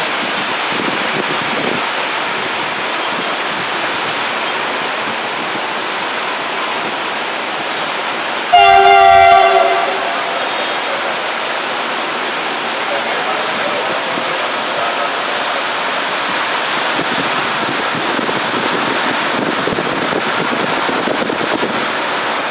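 Heavy rain pouring steadily onto the station tracks and roofs. About a third of the way in, the CC300 diesel-hydraulic locomotive sounds its horn once, a single loud blast of just over a second that cuts off sharply.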